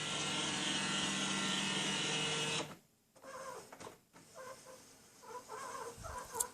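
HP printer's scanner mechanism at work: its motor runs steadily with a humming whine for about two and a half seconds, then stops. It follows with a series of short, irregularly repeated chirping squeaks, the weird noise it makes while scanning.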